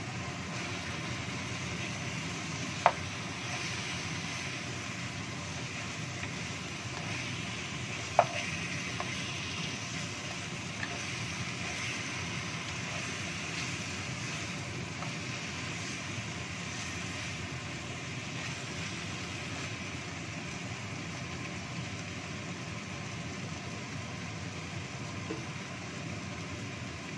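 Boiled chicken pieces in spice paste sizzling in a little oil in a wok, steadily, while being stirred with a wooden spatula. Two sharp knocks of the spatula on the wok, about three seconds in and again about eight seconds in.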